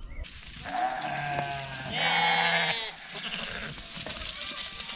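Flock animals bleating: two long, wavering bleats of about a second each, the second one louder, followed by fainter bleats.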